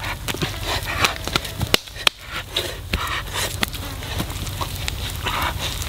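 A small stick fire crackling under a pan of frying chicken, with hands scraping and scooping loose dry soil. Irregular sharp crackles and clicks, with short rustling scrapes.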